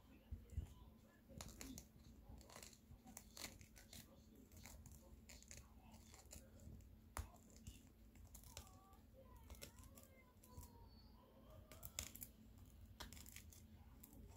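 Corgi puppy chewing and tugging at a plush fabric donut toy: faint, irregular scratchy crackles and tearing-like clicks from its teeth working the fuzzy fabric.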